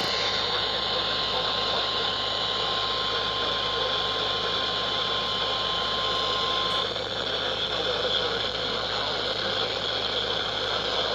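Weather radio receiver hiss and static with no broadcast voice, carrying a steady tone near 1 kHz that stops about seven seconds in.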